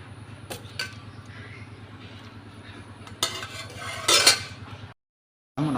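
Kitchen utensils clinking and scraping against cookware: a few sharp clicks, then two scraping bursts, the second the loudest, over a low steady hum. The sound cuts out abruptly near the end.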